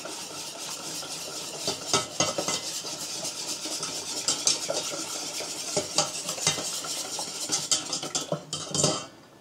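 A wire whisk stirring cream into a butter-and-flour roux in a stainless steel saucepan, scraping and clicking steadily against the pan's bottom and sides. The sauce is being stirred constantly to keep it from sticking and burning to the bottom.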